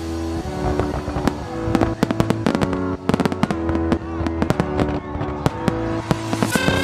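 Fireworks going off in many rapid, irregular bangs and crackles, with background music playing steady held notes under them.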